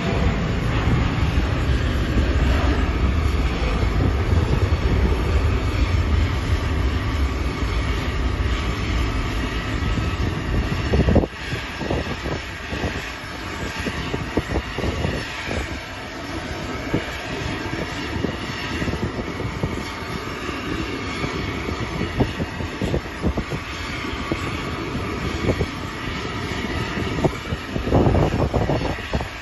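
Jet aircraft engine noise on an airport apron: a steady running sound with a heavy low rumble that drops away suddenly about eleven seconds in, leaving a lighter steady noise with scattered knocks.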